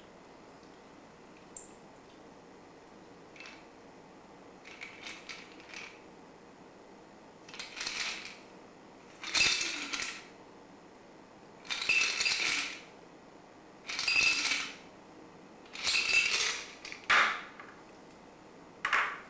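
Ice rattling in a metal cocktail shaker in short, loud jerks about every two seconds, as the last of a shaken drink is shaken out through a fine strainer. A few faint clicks come first, and a short sharp metal clink near the end.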